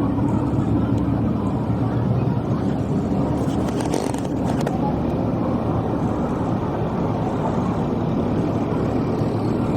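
Steady low rumble of a running vehicle, with a brief rattle of clicks about four seconds in.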